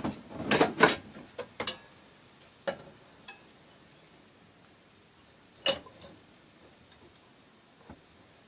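Sharp clicks and knocks of jukebox parts being handled while the record carousel is being fitted: a quick cluster in the first two seconds, then scattered single clicks, the loudest about five and a half seconds in.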